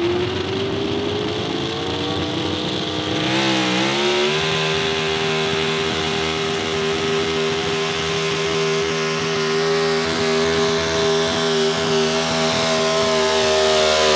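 Pro Stock 4x4 pulling truck's big-block V8, limited to 510 cubic inches and a single four-barrel carburetor, revving up at the line. Its note dips briefly about three and a half seconds in as the truck takes the load, then holds steady at high rpm while it pulls the sled.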